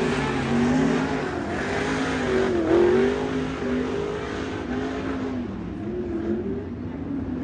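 Several 410 sprint cars' V8 engines running at low speed, their pitch rising and falling as the throttles are blipped.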